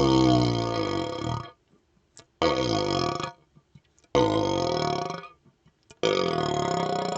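A man's burps blown into a hollow vacuum extension tube. The tail of one long burp falls in pitch and ends about a second and a half in. Three more burps follow, each about a second long, with short gaps between them.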